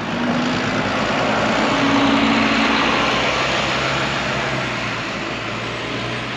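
Double-decker bus engine running as the bus pulls away and drives off. The engine drone and road noise are loudest about two seconds in, then fade as it moves away.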